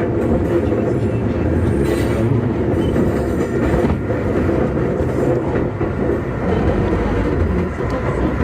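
Running noise inside a Keikyu 2000 series electric train car (DeHa 2052) under way: a steady rumble of wheels on rail, with a few faint rail-joint clicks.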